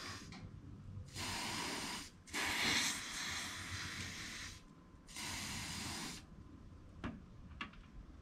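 Aerosol insecticide can spraying in four hissing blasts of one to two seconds each, the longest about two seconds. Two small sharp clicks follow near the end.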